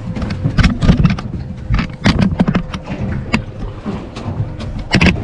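Irregular sharp knocks and clatters on a small fishing boat, with a steady low hum underneath.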